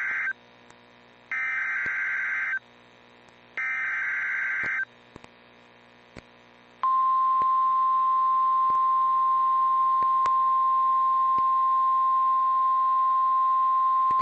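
Emergency Alert System SAME header data bursts over NOAA Weather Radio: the tail of one and two more, each a harsh, buzzy digital screech about a second long, with short silent gaps between them. About seven seconds in, the single-pitch weather radio warning alarm tone starts and holds steady and loud. It signals that a warning is about to be read.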